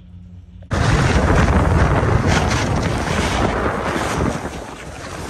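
Loud wind rushing over the microphone, cutting in abruptly just under a second in and then running on steadily.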